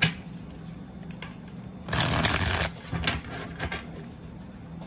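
A deck of cards being shuffled by hand: a sharp tap at the start, a quick riffle lasting under a second near the middle, then a few lighter taps as the deck is handled.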